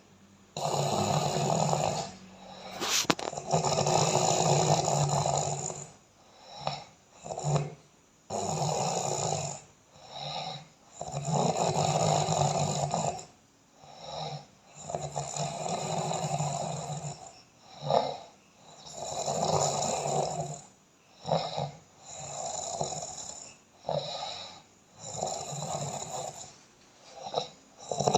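A sleeping person snoring very noisily. Long, loud snoring breaths repeat every few seconds, with short sharp snorts between them.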